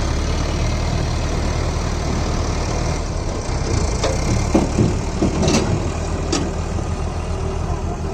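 Mahindra Arjun 555 tractor's diesel engine running steadily at a low, even speed, with a few sharp clacks about halfway through.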